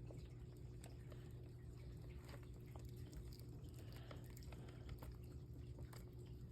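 Bearded dragon chewing a hard patent leather beetle: faint, scattered crisp crunches and clicks over a steady low hum.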